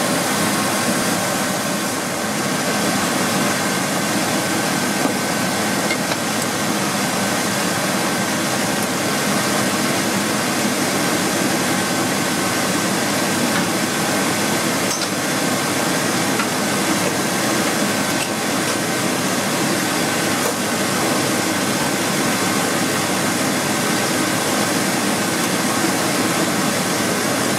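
1998 Chevrolet C1500's 5.0-litre (305) V8 running steadily at idle, warming up on its first run after an intake manifold gasket replacement.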